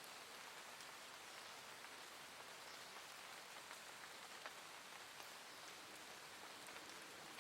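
Soft, steady rain: an even hiss with faint individual drops ticking here and there.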